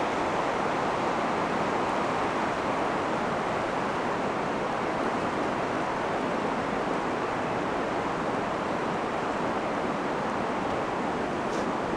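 Steady rush of a wide river running over shallow rocky shoals and riffles.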